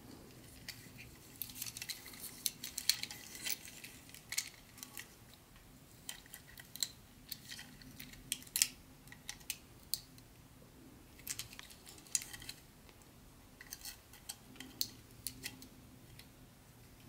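Light, irregular clicks and rattles of small plastic items and packaging being handled. They come in clusters with short pauses between.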